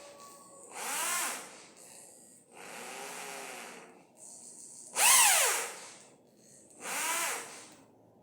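Electric drill winding wire, pulsed on its trigger four times. Each time its motor spins up and runs down in a rising then falling whine, the third pulse, about five seconds in, the loudest.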